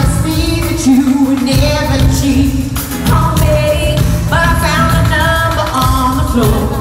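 Live pop-rock band playing with drums, bass and a singing voice on held notes, recorded from the concert floor.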